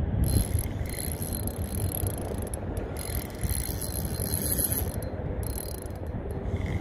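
Fishing reel cranking with a dense, steady mechanical clicking while a large fish is on the line.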